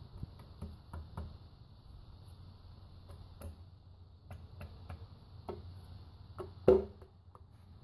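Light clicks and taps of gloved hands handling and seating an aluminium timing chain cover against the engine block, with one sharper knock near the end.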